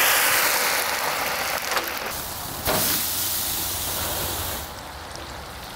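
Frozen french fries frying in oil heated to almost 400 degrees, a loud, dense sizzling hiss. About two and a half seconds in there is one short knock, and then the sizzling goes on a little quieter before dropping away near the end.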